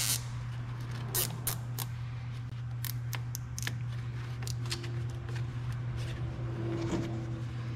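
Plastic zip ties being cinched tight around hoses and their tails snipped off: scattered sharp clicks and snaps, some in quick runs, over a steady low hum.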